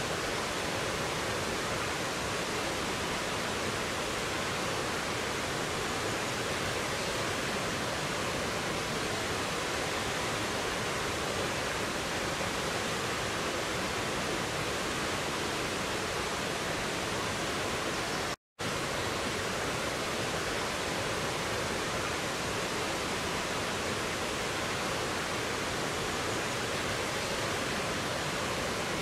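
Stream water rushing over rocks in small cascades: a steady, even rush. It cuts out for a split second about two-thirds of the way through, then resumes unchanged.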